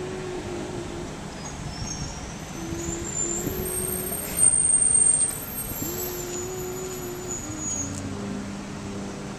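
City street traffic running steadily, with a louder burst of noise and a high squeal for about a second near the middle, as of a passing vehicle braking. Several held low notes sound on and off over the traffic.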